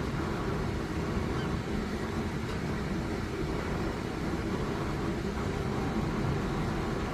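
Steady low rumble of background traffic noise, with no distinct events.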